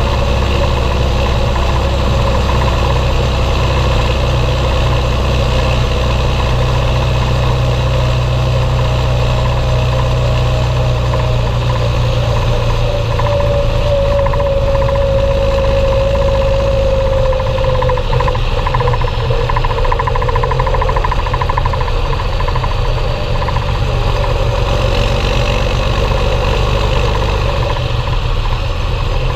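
Belarus 1221.3 tractor's diesel engine running steadily while hauling trailers loaded with wheat. A whine rides over it, strengthening and falling slightly in pitch before fading about two-thirds of the way in.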